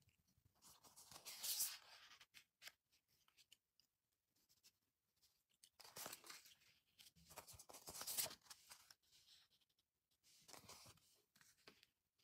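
Glossy paper sticker sheets rustling and sliding against one another as they are handled and fanned out, in three short spells: about a second in, again from about six to eight seconds in, and near the end.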